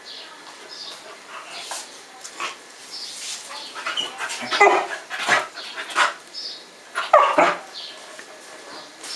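Airedale Terrier and Yorkshire Terrier puppies at play, giving several short barks clustered from about four and a half to seven and a half seconds in, with quieter, softer calls between.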